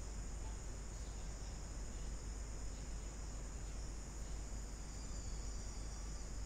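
Steady background noise: a constant high-pitched hiss with a low hum underneath, unchanging throughout.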